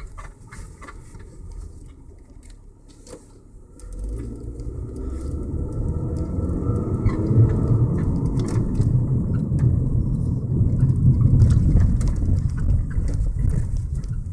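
Toyota car's engine and road noise heard from inside the cabin while driving. Quiet at first, then a low rumble that grows louder from about four seconds in as the car picks up speed.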